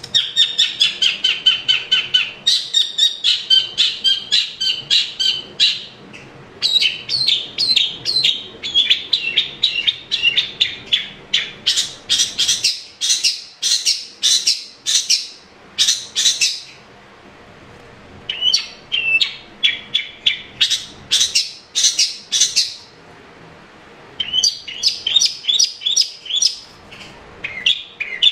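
Long-tailed shrike singing: fast runs of short, sharp repeated notes, several a second, breaking off twice briefly in the second half.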